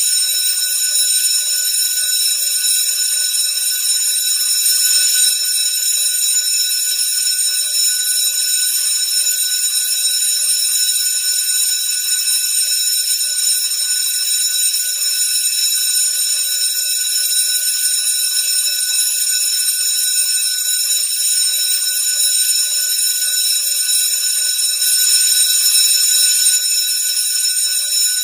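School bell ringing continuously, a steady unbroken high ring with no pauses.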